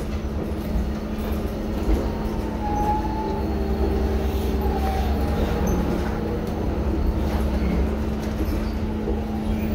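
Interior ride noise of a New Flyer DE60LF articulated diesel-electric hybrid bus under way: a steady low drone and rumble with a constant hum, and a few faint brief whines.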